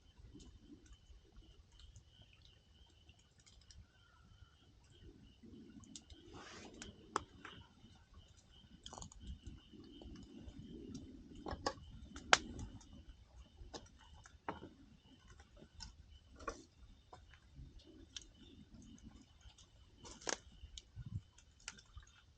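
Wood campfire crackling, with irregular sharp pops and snaps, the loudest about halfway through.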